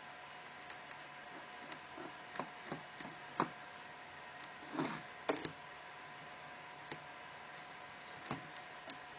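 Handling noise from a plastic dishwasher rack rail with its wheels, one of them a 3D-printed replacement: scattered light plastic clicks and taps, the loudest about three and five seconds in, over a steady faint hiss.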